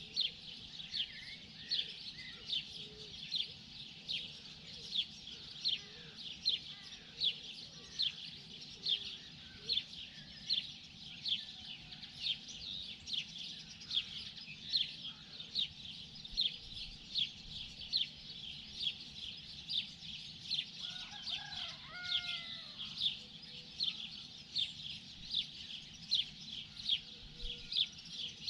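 Morning birdsong: one small bird repeats a short, sharp high chip about twice a second throughout, with fainter calls from other birds behind it. About three quarters of the way through there is a brief, lower call.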